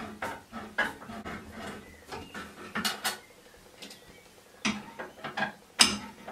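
Metal screwdriver undoing the cross-head back screws inside a ceramic toilet cistern: a string of irregular small clicks and scrapes, metal on screw and porcelain, the loudest near the end.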